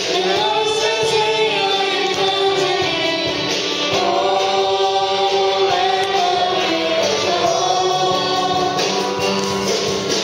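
Choir singing a hymn with musical accompaniment, voices holding long notes that slowly rise and fall.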